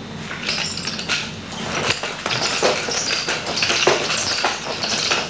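Nunchaku being swung and flipped in a run of quick, irregular swishes, with sharper slaps as the sticks are caught in the hand.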